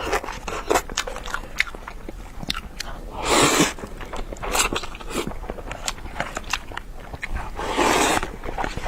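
Close-miked eating sounds: a person chewing noodles with many small wet mouth clicks, and two longer slurps, one near the middle and one near the end.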